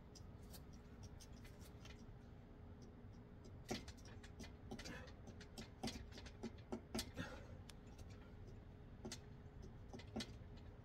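Faint sharp clicks and ticks from a metal dip station under a set of bodyweight dips. They come loosely about a second apart, thickest from about four to eight seconds in.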